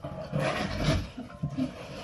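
Rustling and scraping of packaging as a large cardboard box of yarn is opened and rummaged through, in irregular bursts.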